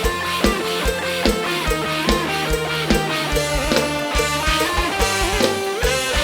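A live Isan band playing an instrumental passage: a steady kick-drum beat of about two and a half hits a second under bass and guitar.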